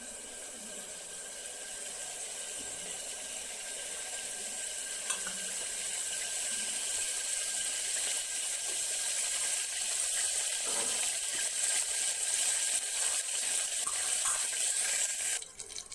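Cumin seeds sizzling in hot vegetable oil in a pressure cooker: a steady hiss that slowly grows louder as the seeds roast, then cuts off suddenly near the end.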